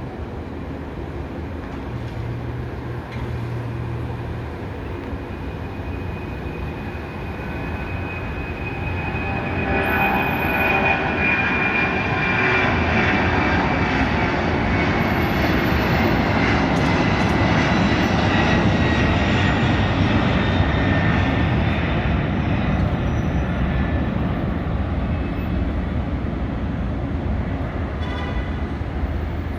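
Boeing 767-281 freighter's two jet engines at takeoff power, a steady jet noise that swells about eight seconds in. A high whine in it slowly falls in pitch, and the whole sound then slowly fades away.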